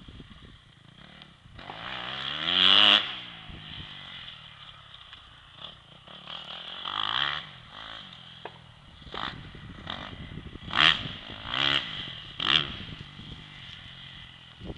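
Dirt bike engine heard from a distance, revving up and falling off again and again as it rides the track: one long rise about three seconds in, another around seven seconds, and three short sharp revs close together near the end.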